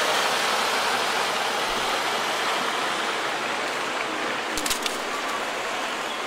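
Steady hiss of rain falling, with a few short clicks about four and a half seconds in.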